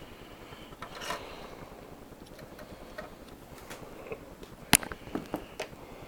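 Clicks and handling noise from the cord-reel release latch of a 1975 Premier upright vacuum being worked by hand, with one sharp click about three quarters of the way through and a few smaller clicks after it. The latch is a little sticky, and the reel draws the cord in only very slowly.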